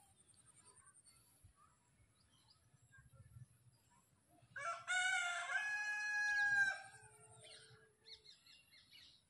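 A rooster crowing once: a single call of about two seconds, a little past the middle.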